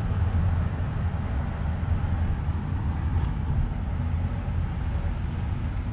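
Steady low rumble of a moving car heard from inside the cabin: engine and road noise.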